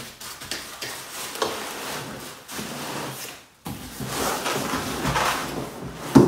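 Cardboard packaging scraping and rustling as the packed contents are slid out of a carton by its pull tab. It breaks off briefly just past halfway, and a sharp thump near the end is the loudest sound.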